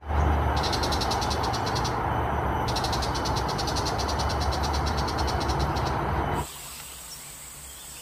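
Tiger shrike calling: two long runs of a harsh, rapid rattling chatter over a steady low rumble. About six seconds in the sound drops suddenly to a much quieter background with a faint steady high hiss.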